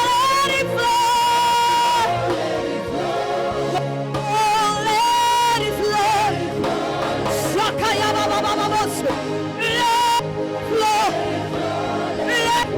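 Gospel worship music: a singer holding long, wavering notes with vibrato over a steady band accompaniment.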